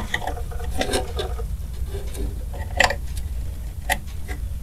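Plastic clicks and taps of an 8-pin PCIe power cable being handled and pushed into a graphics card's power socket: a few sharp clicks, the loudest at the very start and about three seconds in.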